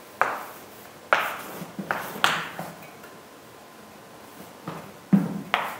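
A run of sharp taps and knocks from a pen or marker striking a writing surface, about seven in all, each fading quickly, with a pause in the middle.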